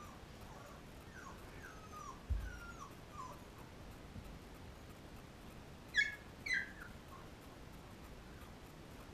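13-day-old Labrador puppies whimpering: a run of short, squeaky whines that fall in pitch over the first few seconds, then two louder, higher squeals about six seconds in. A soft low thump comes about two seconds in.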